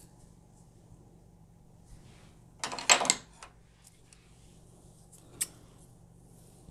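A brief loud rustle of synthetic wig hair being handled and pulled forward, about three seconds in, followed by a faint click a couple of seconds later.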